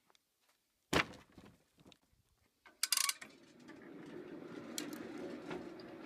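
A cut slab of log with the bark still on is dropped onto the scrap pile with a heavy thump about a second in, followed by a few lighter knocks. A short rattling clatter comes near three seconds, and after it a faint, steady hum.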